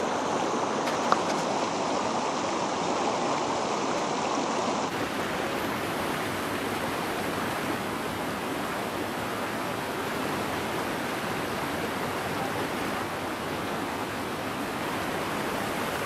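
Steady rushing of a waterfall and the rocky mountain stream below it.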